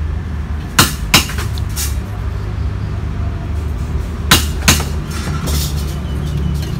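Mason's trowel knocking while scooping cement mortar from a bucket: two pairs of sharp clinks about three seconds apart, over a steady low hum.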